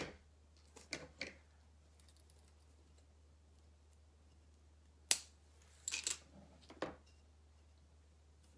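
Scissors snipping through a strand of bead chain trim. A few faint clicks come about a second in, a single sharp snip about five seconds in, and a quick cluster of clicks just after.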